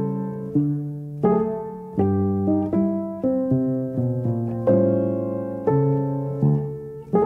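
Background piano music: unhurried notes and chords, each struck and left to fade.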